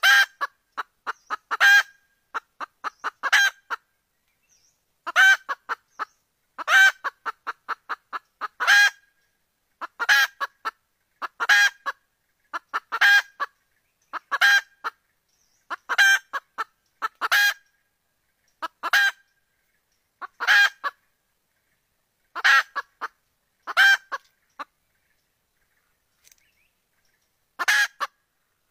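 Red junglefowl hen clucking: runs of quick clucks, each ending in a louder, longer call, repeated about every one and a half seconds, with a pause of about three seconds near the end. It is the wild hen's call that draws in roosters.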